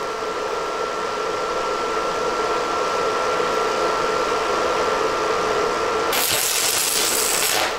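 Stick (arc) welding a tack on steel with a 2.0 mm electrode at about 120 A: about six seconds in the arc strikes and crackles with a loud hiss for about a second and a half. Before that only a steady hum with a thin high tone is heard.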